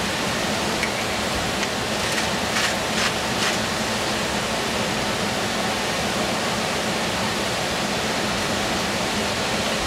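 Steady hiss of stovetop cooking while vegetables cook, with a few faint clicks between about two and three and a half seconds in.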